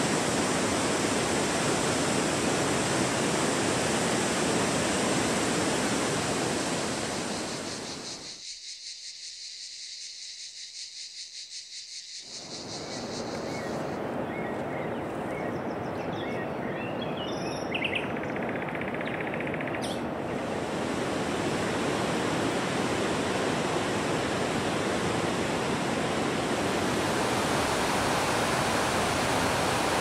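Steady rushing of waterfalls pouring into a lake. The rush thins and dips for several seconds in the middle, leaving a faint wavering hiss and then a few bird chirps, before building back to full strength.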